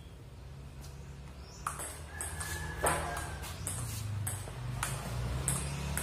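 Table tennis ball clicking back and forth in a rally, striking the paddles and bouncing on the table, a quick run of sharp knocks about three a second starting a little under two seconds in.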